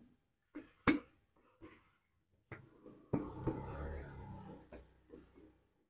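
Steel cylinder liner being fitted into a bore of an Isuzu Panther diesel engine block by hand: a sharp knock about a second in, a few light clicks, then a scraping rub lasting about a second and a half.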